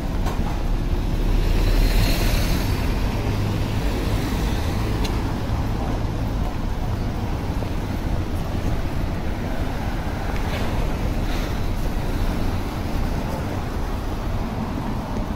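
City street traffic: a steady rumble of cars on the road, swelling a little about two seconds in as a vehicle passes close.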